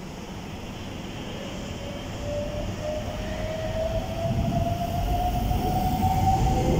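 Chiba New Town Railway 9800 series electric train pulling away from the station: its traction motor whine rises steadily in pitch from about two seconds in, over a rumble of wheels that grows louder as the train gathers speed.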